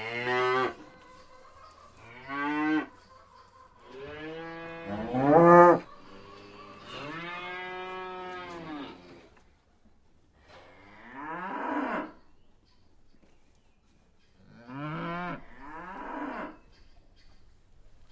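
Cows mooing: a series of about seven moos of varying length, some short and some long and drawn out, with brief pauses between them. The loudest moo rises in pitch at its end, about five and a half seconds in.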